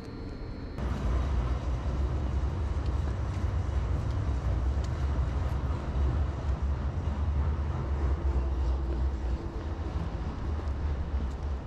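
Outdoor night-street noise dominated by a steady low rumble, which comes in abruptly about a second in.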